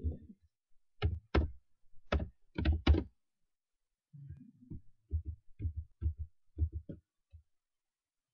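Computer keyboard keystrokes with a dull thud to each tap: a few scattered strokes, a pause, then a quicker run of taps in the second half.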